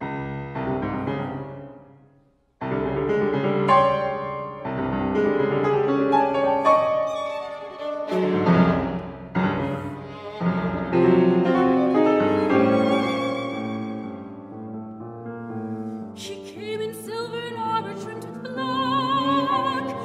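Violin and piano playing the introduction to a classical art song, with a brief sudden break about two seconds in; near the end a soprano voice enters with a wide vibrato.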